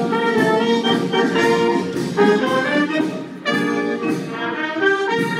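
Brass band playing a tune, trumpets and trombones sounding together, with a brief pause about three and a half seconds in before the next phrase.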